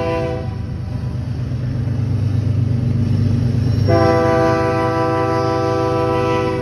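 Diesel locomotive air horn sounding a multi-note chord. One blast cuts off about half a second in, and a second long blast starts about four seconds in and holds, over a steady low rumble.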